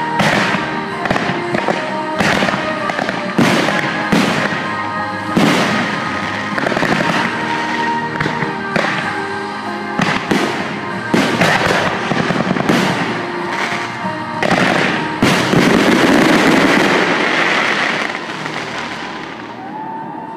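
Fireworks display: a rapid series of shell bursts and bangs, building to a dense, continuous volley of crackling about 15 seconds in, then dying away near the end. Music plays underneath.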